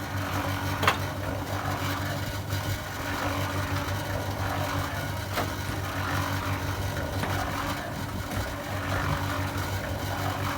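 Concrete mixer running steadily with an even engine hum, and a sharp knock about a second in.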